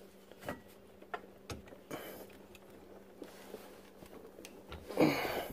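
Scattered light clicks and knocks of hands working an old garbage disposal loose from its sink mounting, then a louder clatter about five seconds in as the unit comes free.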